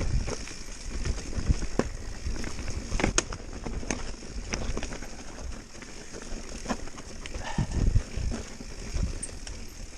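Mountain bike being ridden over rough trail: tyres on stones and dirt, with irregular knocks and rattles from the bike and a low rumble of wind on the microphone.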